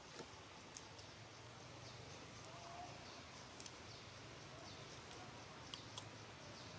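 Quiet forest-floor ambience: a faint steady hiss with a handful of sharp, faint clicks spread irregularly through it and a few faint, short, high chirps.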